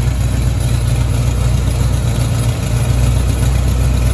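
1983 Chevy Silverado's crate engine idling steadily while hot. At this hot idle the tailpipe rattles against the side of the transmission, and there is an exhaust leak.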